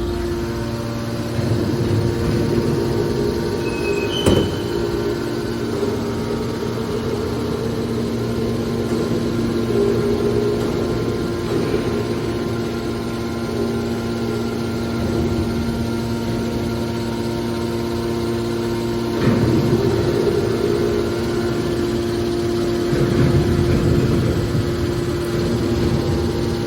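Hydraulic car baler running with a steady machine hum. There is a sharp knock about four seconds in, and louder grinding stretches come twice in the latter part.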